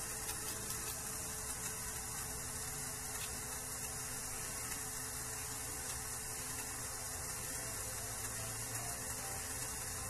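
Steady hiss with a faint low hum underneath, with no distinct sound standing out: the room tone of a workbench.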